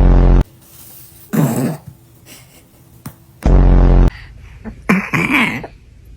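Baby's hiccups: two loud, short, low-pitched hics, one right at the start and one about three and a half seconds in, with quieter short vocal sounds between them.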